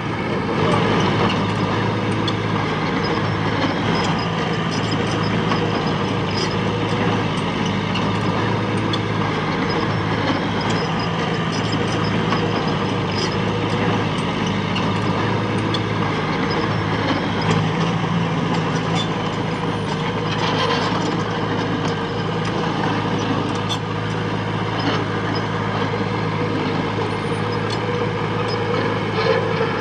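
Heavy construction machine's diesel engine running steadily, with scattered light metallic clanks.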